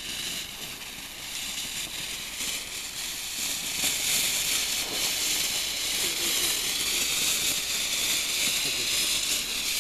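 A ground firework fountain spraying sparks with a steady high hiss, which grows louder about three seconds in.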